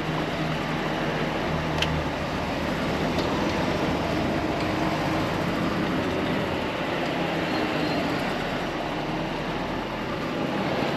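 Volvo FH 540 truck driving slowly, with its diesel engine running under a steady rumble of road and chassis noise and a single sharp click about two seconds in.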